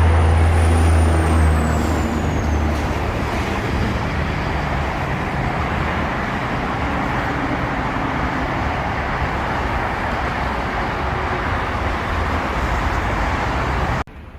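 Road traffic noise: a heavy vehicle's low engine rumble for the first couple of seconds, with a high whine that falls in pitch, then a steady wash of passing traffic that cuts off suddenly near the end.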